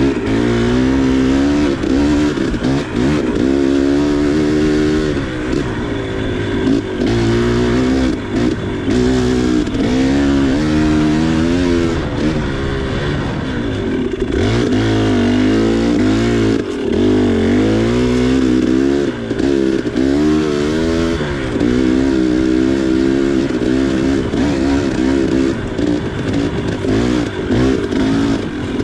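KTM 300 XC two-stroke single-cylinder dirt bike engine revving up and down again and again as the throttle is worked, its pitch rising and falling every second or two.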